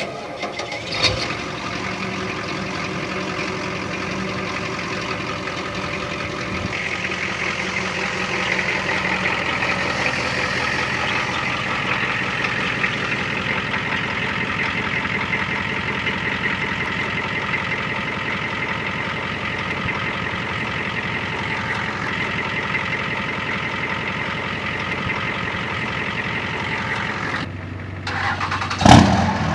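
Diesel pickup truck engine idling steadily, with a short click about a second in and a sharp, loud knock near the end.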